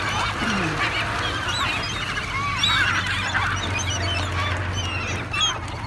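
A flock of seagulls crowding in to be fed, many short squawks and cries overlapping.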